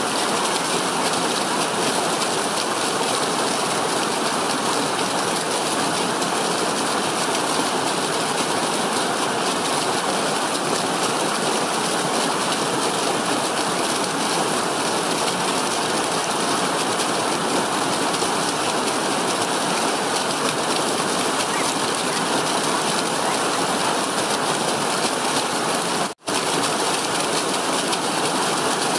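Small stream tumbling down a rocky slope in a white-water cascade: a steady rush of water, which cuts out for an instant near the end.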